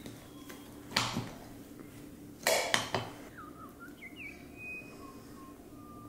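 Kitchen knife clinking against a cut-glass cake stand and china as a cake is sliced and served: one sharp clink about a second in, then a quick run of three clinks around two and a half seconds. Faint bird chirps follow.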